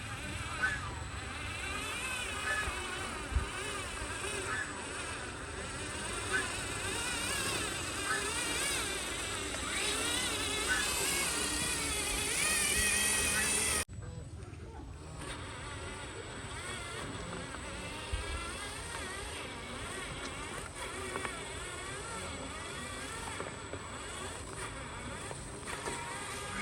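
Small electric motors of radio-controlled construction models whining, the pitch wavering up and down as they work. The sound cuts off sharply about halfway through, then the whining picks up again more quietly.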